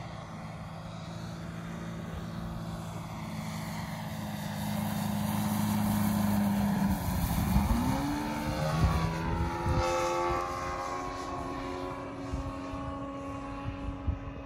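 Large-scale model aerobatic plane's DA-200 four-cylinder boxer gas engine and propeller making a low pass. The engine note grows louder as it approaches, drops in pitch as it passes close about seven seconds in, then rises again and fades as the plane climbs away.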